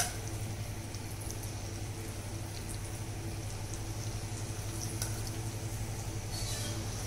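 Marinated chicken pieces frying in hot oil in a kadai: a steady gentle bubbling and sizzle with scattered small crackles over a low steady hum. Near the end, metal tongs tick against the pan as pieces are lifted out.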